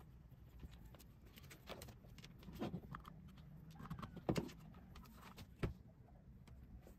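A few soft clicks and taps of a charging cable and its plastic USB plug being handled over a desk, the loudest about four seconds in, over a low steady hum.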